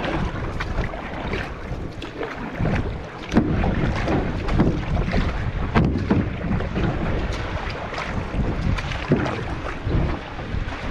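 Canoe being paddled with a wooden paddle: repeated splashes and water sloshing from the strokes, with a few sharp knocks, over steady wind rumble on the microphone.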